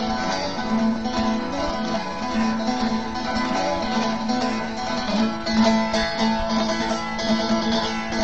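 Instrumental introduction of a Turkish folk song (türkü) played on a plucked saz (bağlama), with a steady low note sounding underneath the melody.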